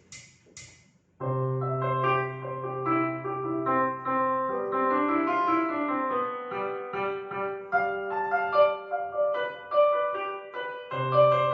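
Piano music begins about a second in: a low held bass note under a moving melody of single notes. Two faint ticks come just before it starts.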